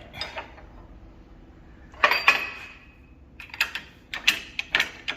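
Metal tools and parts being handled in a workshop: two ringing metal clanks about two seconds in, then a run of sharp clicks and knocks.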